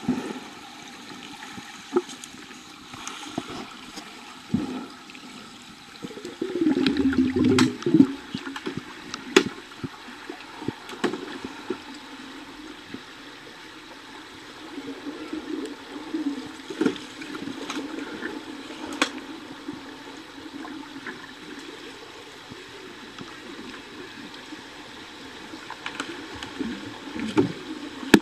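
Underwater hockey play heard from beneath the pool's surface: a muffled water hiss with scattered sharp clicks and knocks, and a louder bubbling rush from about six and a half to eight seconds in.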